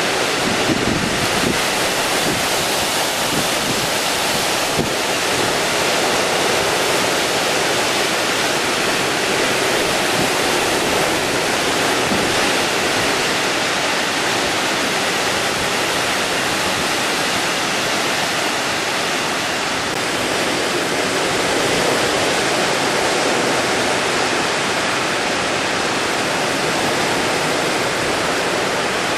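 Storm-force wind and heavy surf on an open coast: a loud, steady rush of noise that never lets up, with wind striking the microphone.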